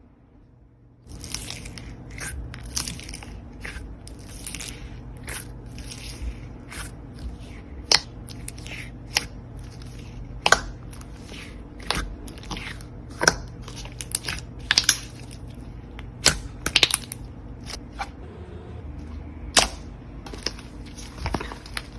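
Slime being squeezed and poked by hand, giving irregular sharp pops and clicks, some loud, over a steady low hum. The sounds begin about a second in.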